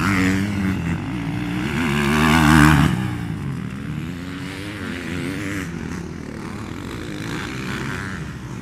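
Motocross bikes revving hard around a dirt track, their engine pitch rising and falling with the throttle. The engine sound swells to its loudest about two and a half seconds in, then drops back to a steadier, lower level.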